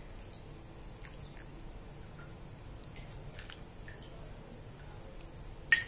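Stainless steel ladle scooping hot liquid from a pot and pouring it into a bowl: faint splashes, drips and small clicks, with one sharp clink near the end.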